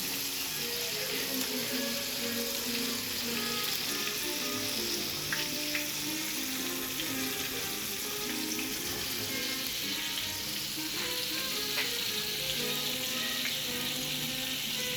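Dredged chicken pieces deep-frying in hot oil at about 345 degrees: a steady sizzle with scattered sharp pops. Music plays faintly underneath.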